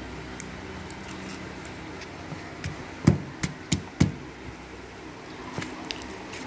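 Pink glitter slime squeezed and poked by hand, giving a run of small wet pops and clicks as air pockets burst, four louder ones close together about three to four seconds in, over a low steady hum.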